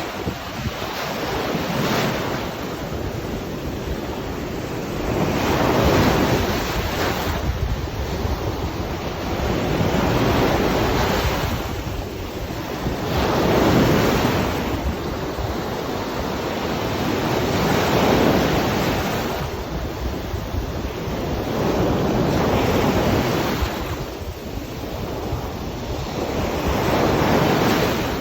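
Ocean waves breaking and washing on a beach, the surf swelling and easing about every four seconds.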